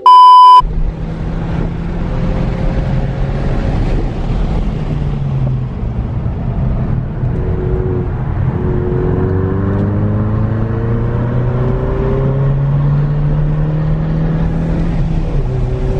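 A loud test-tone beep for about half a second, then a car engine heard from inside the cabin, pulling hard on a race track, its pitch climbing and dropping back a few times.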